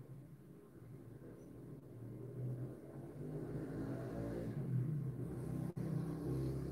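Low hum of a motor vehicle's engine, growing steadily louder, with a single sharp click near the end.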